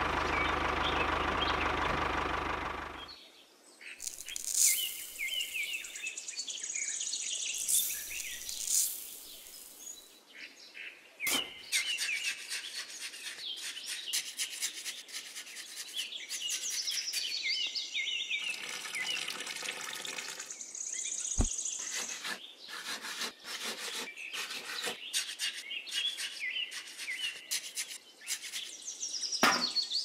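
A small electric motor runs for about the first three seconds and then stops. After that, birds chirp while a small hand trowel scrapes and taps through a dry sand-and-cement mix.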